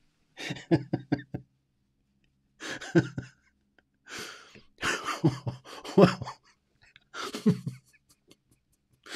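A man laughing in several short bursts, some broken into quick pulses, with breathy exhalations between them.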